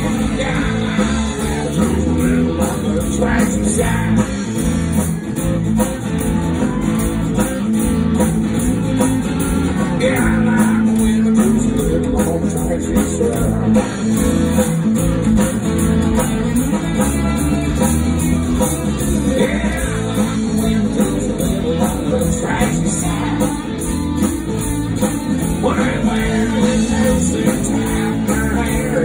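Live country band music played loud through a stage sound system: acoustic and electric guitars over a steady beat.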